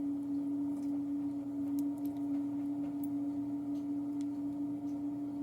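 Steady one-pitch electrical hum, with a few faint light clicks of small metal lock parts as a follower is worked into a padlock core.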